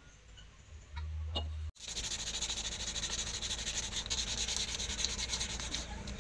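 Curved wooden axe handle being shaped against a spinning electric grinder's sanding disc: a steady, rasping sanding noise that starts about two seconds in, after a short quieter stretch with a low hum and a couple of light taps.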